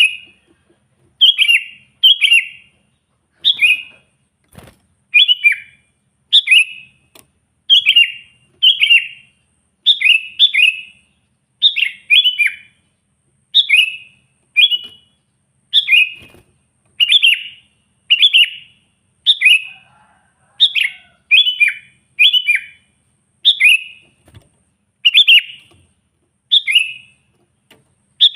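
Sooty-headed bulbul (kutilang) singing in full, lively voice: short, bubbly, falling phrases repeated about once a second, often in quick pairs.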